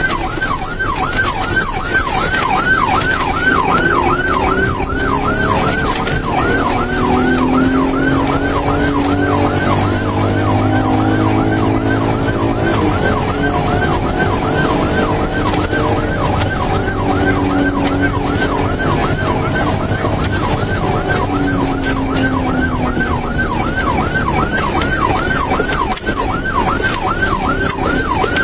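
Police car siren on a rapid yelp, sweeping up and down about three times a second without a break, over the patrol car's engine and road noise.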